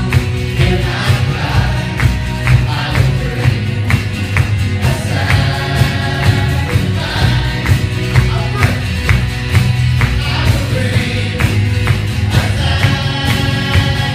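Live worship band playing a song: guitars, keyboard, bass and a drum kit keeping a steady beat, with voices singing.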